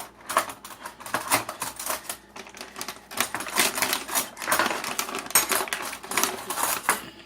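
A spoon clicking and scraping against a salsa jar and bowl in quick, irregular strokes as thick salsa is scooped out.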